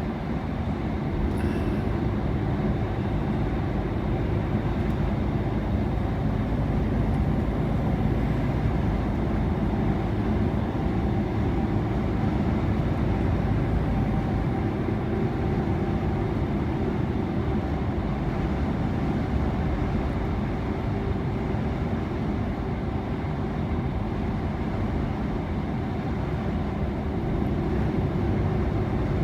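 Steady engine drone and road noise inside the cab of a moving lorry at motorway speed, even and unbroken, with a few faint steady tones in it.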